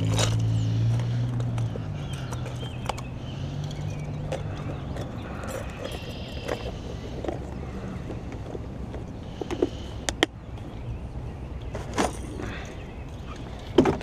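Plastic tackle box and hard lures clicking and knocking as they are handled. A low motor drone is loudest in the first couple of seconds and fades away over the next few.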